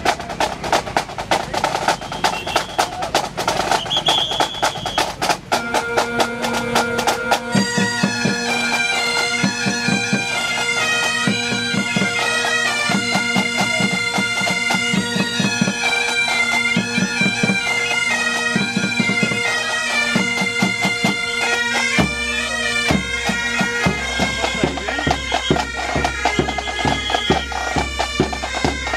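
Pipe band striking up a quick march: a snare drum roll, then the bagpipe drones come in about five seconds in and the chanters start the tune a couple of seconds later. Bass drum beats join about three quarters of the way through.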